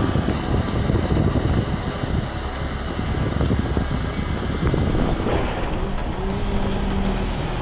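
Komatsu 895 forestry forwarder running, its diesel engine working steadily under load. About five seconds in the sound cuts to a different machine with a steady droning hum.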